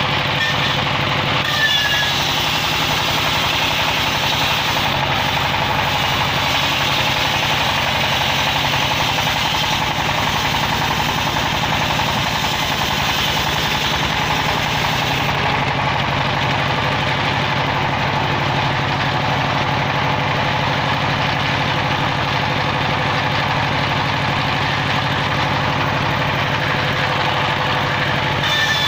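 Sawmill circular saw ripping a teak log lengthwise, with the saw's engine running steadily under load.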